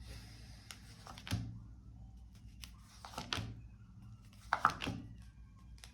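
Tarot cards being handled and laid down: a few faint, short taps and rustles a second or two apart, over a low steady hum.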